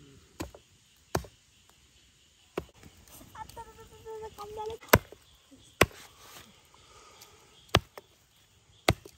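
A heavy blade chopping onto a wooden surface: seven sharp, separate strikes at an uneven pace, roughly one to two seconds apart.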